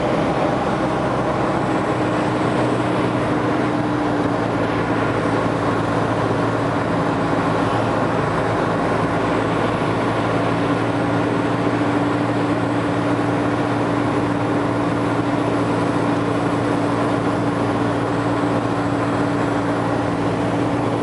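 Steady drone of a vehicle's engine heard from inside the cabin, with a constant low hum whose pitch sags slightly for a few seconds midway.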